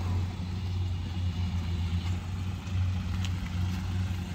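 Engine of a small rice-hauling vehicle loaded with grain sacks, running with a steady low hum as it drives away.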